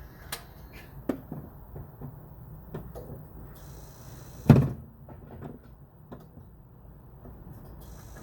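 Scattered light clicks and knocks of handling, with one loud thump about four and a half seconds in, like a car door or panel being shut.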